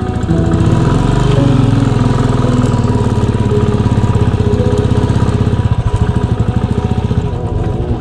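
Motorcycle engine running at low revs on a rough dirt track, a rapid low pulsing of its firing strokes. The pulses slow and become more distinct toward the end.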